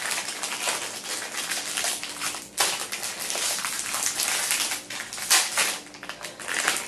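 Plastic protein-cookie wrapper crinkling and crackling as it is wrestled and torn open by hand. The crackle is dense and continuous, with a few louder sharp rips, one about two and a half seconds in and one a little past five seconds.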